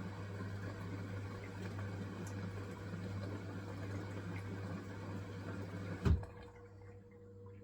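Hisense washing machine running a wool cycle: a steady low motor hum with a rustling, sloshing noise of the turning drum, ending in a single sharp knock about six seconds in, after which the drum noise stops and only a quieter hum remains.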